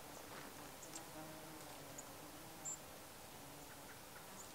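Quiet open-air background with scattered short, high-pitched insect chirps and ticks, the loudest about one second in and again near the middle, over a faint low hum.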